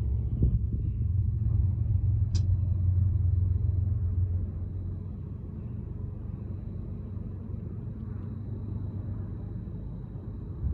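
Two BNSF diesel locomotives running with a deep, steady engine rumble that drops a few decibels about four and a half seconds in.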